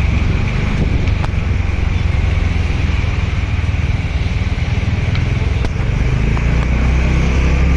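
Road traffic in a jam: car and motorcycle engines running in a steady low rumble, with no horns sounding.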